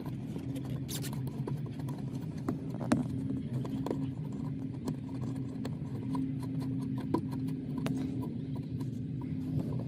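Scattered sharp clicks and light metal taps of a wrench working the lock nut on a clutch pedal switch, over a steady low hum. Two clicks, about 3 s and 7 s in, are the loudest.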